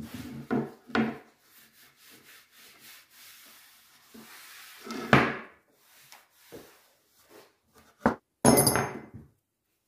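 A cloth rag rubbed in strokes along a wooden board. Near the end, forged angle-iron hooks click and clink as they are picked up and wiped, with a brief metallic ring.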